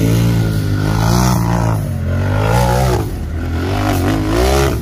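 RZR rock bouncer's engine revving hard and repeatedly, its pitch climbing and dropping about three times, rising again near the end and then falling away.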